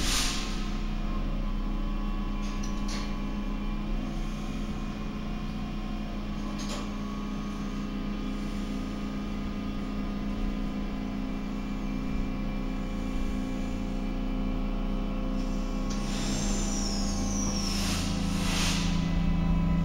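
Stadtbahn light-rail car at a standstill in an underground station: the car's equipment hums steadily, with a few short hisses of air. Near the end there is a brief falling squeal and another hiss, and then a low motor hum grows as the train starts to pull away.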